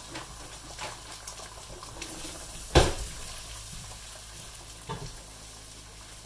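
Beaten eggs sizzling in a nonstick frying pan, then being stirred with a silicone spatula to scramble them. There is a steady low sizzle, a sharp knock a little under halfway through and a lighter knock later on.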